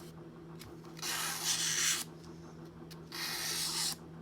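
Tweezers being rubbed across fine-grit sandpaper on a glass tile to flatten their inner faces: two scratchy sanding strokes, each about a second long.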